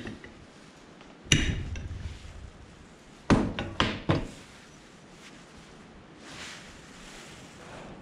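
Metal knocks from an adjustable spanner tapping a new seal into a hydraulic ram's gland housing. One hard knock about a second in, with a short ring after it, then three more knocks in quick succession about two seconds later.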